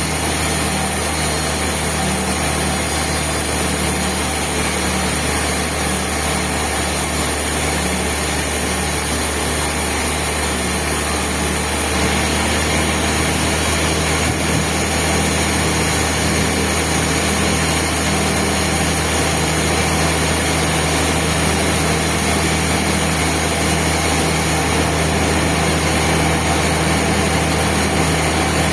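Sawmill machinery running steadily: a constant engine-like drone with a broad hiss over it that does not change.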